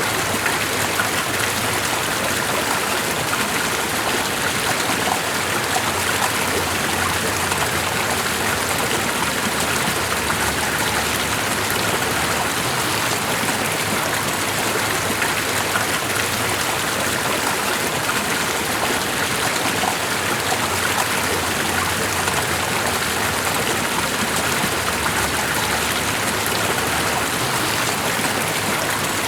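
Running water of a stream flowing steadily: an even, unbroken rushing hiss.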